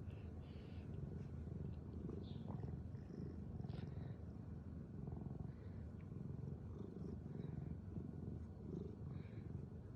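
Snoring: a low, even rumble that carries on without clear pauses, with a few faint small ticks above it.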